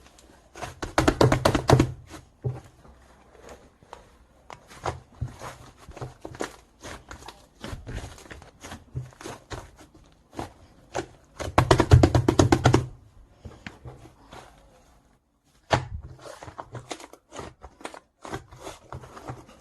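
White slime being squeezed and pressed by hand, making irregular sticky clicks and pops, with two louder runs of rapid crackling as air pockets burst.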